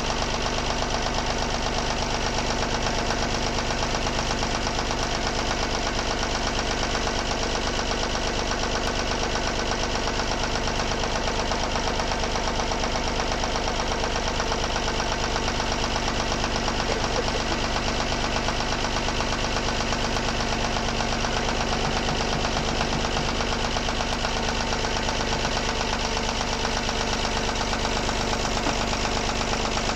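Volvo D17C diesel engine running steadily at idle with an even knocking beat, after its broken valve spring has been replaced. The tappet clatter is one the owner judges too loose.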